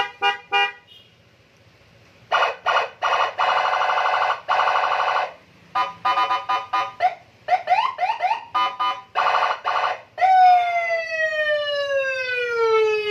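Custom police-escort (patwal) electronic siren through a 15-watt horn speaker, cycling through its tones: bursts of quick pulsed beeps, a few short rising chirps, and from about three-quarters of the way through one long wail that slides down in pitch.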